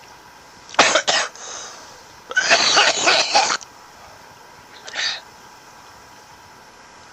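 A man coughing hard after a big bong hit. Two sharp coughs come about a second in, a loud run of coughs lasts about a second from two and a half seconds, and one more cough follows a little later.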